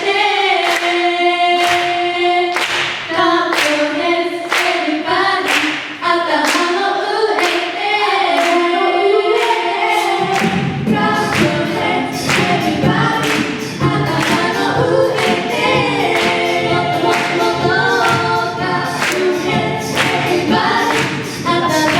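An a cappella vocal group singing in harmony over a steady beat of vocal percussion. A low bass voice comes in about halfway through.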